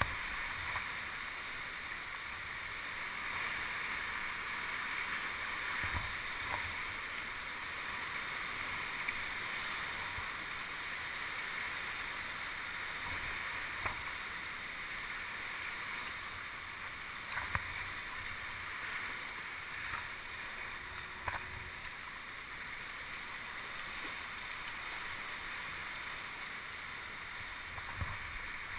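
Sea water washing and sloshing around a kayak in ocean swell, a steady hiss, with a few sharp knocks now and then.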